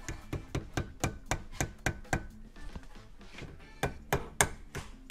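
Repeated sharp taps on a plastic rod used as a drift to knock the factory front sight out of a CZ75 slide held in a steel vise. The taps come about four a second, pause briefly, then come back harder near the end as the sight comes free.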